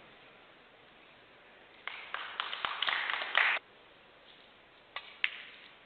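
A dense flurry of sharp clicks lasting under two seconds that cuts off suddenly, then the single tap of a snooker cue tip striking the cue ball, followed a quarter of a second later by the louder click of the cue ball hitting a red.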